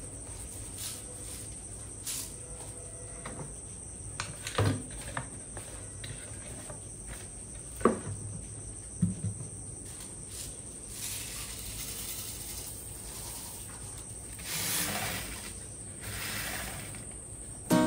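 Handling noises of a plastic bucket lid and a small plastic cup: a few sharp knocks and clicks in the first half, then rice grains poured and scattered over the lid in several rustling, hissing patches in the second half. A steady faint high whine runs underneath.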